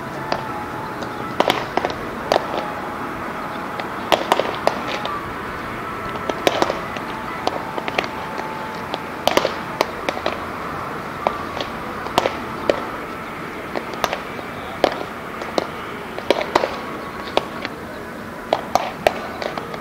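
Baseballs smacking into leather gloves during a game of catch: a sharp pop every second or so, over a steady outdoor background hum.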